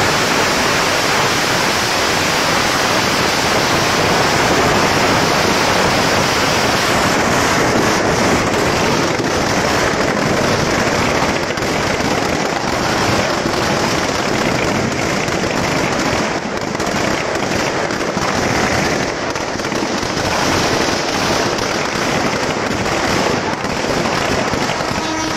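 Firecrackers packed inside a burning Ravana effigy going off in a dense, continuous crackle of rapid bangs, easing slightly after about sixteen seconds.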